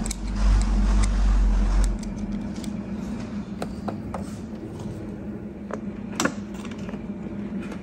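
Scattered light metal clicks and clinks of a hand screwdriver driving screws into a metal B-pillar seal retainer, over a steady low hum, with a dull low rumble in the first two seconds.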